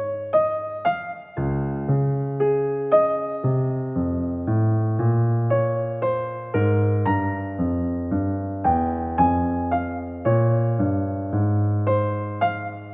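Soft piano music: a slow melody of single notes over low held chords, each note struck and fading.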